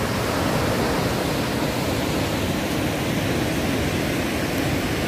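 Water overflowing a dam spillway in high water, pouring over the crest into churning whitewater: a steady, unbroken rush.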